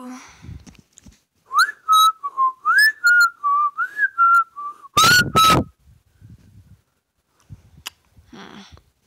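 Alarm going off as a high whistling tune: short notes that slide up and down for about four seconds, the last two loudest, then it stops. Soft handling noises follow near the end.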